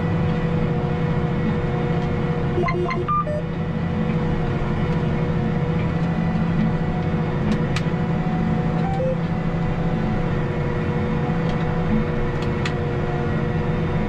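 John Deere 8320R tractor's six-cylinder diesel running steadily under load as it pulls a disk harrow through dry soil: a constant drone with a steady whine over it. A few brief clicks and chirps come about three seconds in, with scattered faint ticks after.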